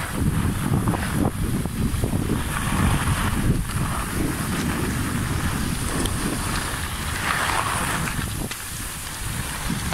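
Wind buffeting a handheld smartphone's microphone while skiing downhill, a continuous low rumble, with the hiss and scrape of skis on packed snow swelling and fading with the turns.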